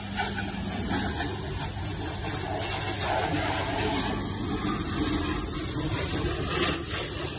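Pressure washer running, its high-pressure water jet hissing steadily against a car's side panels and wheel over the drone of the washer's motor.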